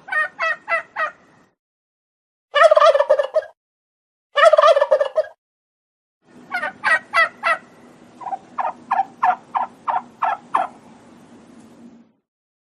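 Turkeys calling: the tail of a gobble, then two full rattling gobbles of about a second each. These are followed by a long rhythmic run of separate short calls, about a dozen evenly spaced notes, over a low steady hum.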